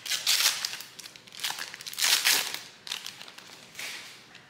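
Wrapper of a Panini Donruss trading card pack being torn open and crinkled by hand. It comes in several bursts, the loudest about two seconds in.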